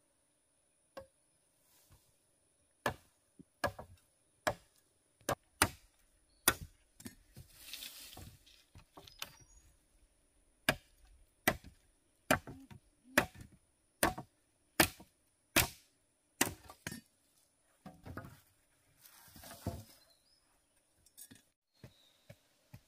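Wood being chopped with a blade: about twenty sharp strikes, roughly one a second, with short pauses and a couple of brief rustles between them.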